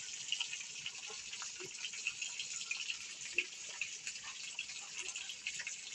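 Fish frying in hot oil in a pan: a steady sizzle with many small crackles and pops.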